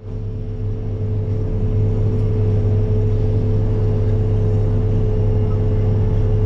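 Tractor engine running steadily under load while pulling a planter, a deep, even drone with a steady higher hum above it.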